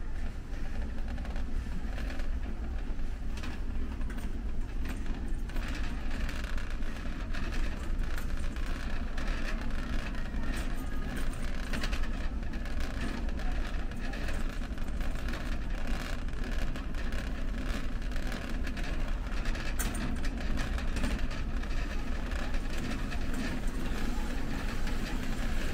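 Warehouse-store ambience: a steady low rumble with frequent light clicks and rattles, and faint voices in the background.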